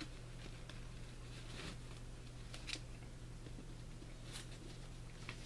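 Faint rustles and light clicks of a book and its packaging being handled, a few scattered times, over a steady low electrical hum.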